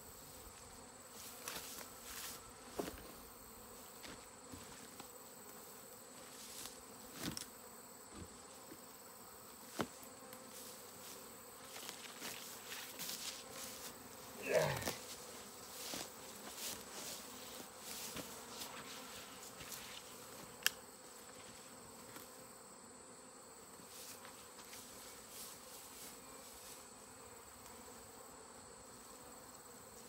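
Faint steady hum of a swarm of honeybees buzzing around the hive box and branch, with one bee flying close past about halfway through, a louder buzz that bends in pitch. Scattered short knocks and rustles of handling come through here and there.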